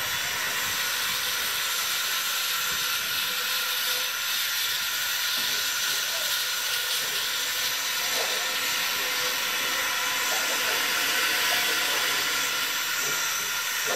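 Steady hiss of steam escaping from a narrow-gauge steam locomotive.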